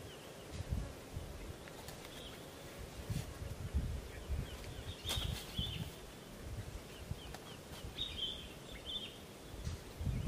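Outdoor ambience with small birds giving a few short, high chirps, over irregular low rumbling.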